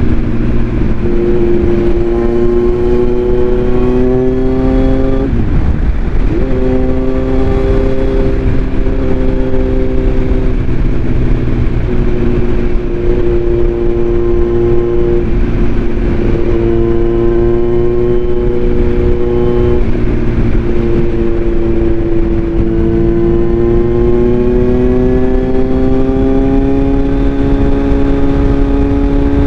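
Kawasaki Z900 inline-four engine running with its airbox removed. The engine note climbs steadily and then falls back several times, with a low rumble underneath.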